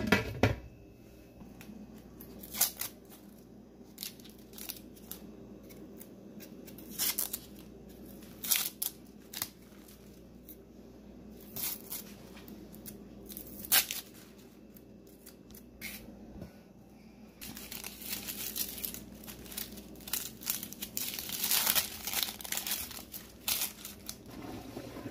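Dry, papery onion skins being peeled and torn off by hand, crackling in short sharp bursts that grow denser in the last third. A glass pot lid clinks on at the start.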